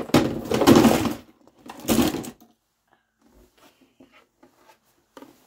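Handling noise from a cardboard box of fidget toys: two loud rustling, scraping bursts in the first two seconds or so, then faint rustles and light clicks.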